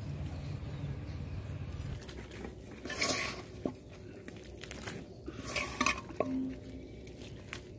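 Scraping and clinking of a knife and metal utensils as cut-up raw chicken is handled, in two brief bursts about three and five and a half seconds in.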